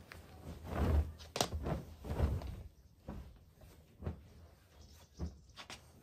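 Bed linen being handled on a mattress: fabric rustling and soft thuds as a quilted duvet and its cover are pulled off and bundled up, with one sharp click a little over a second in.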